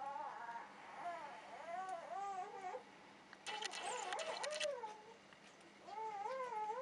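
Wavering, warbling calls in several short phrases, with a rapid rattle of clicks about halfway through. The title and tags put these down to three-spot gouramis talking to each other.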